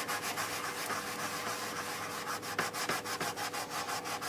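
Hand scrubbing on a moped's front fender, quick back-and-forth rubbing strokes several times a second, working at a stubborn mark that will not come off.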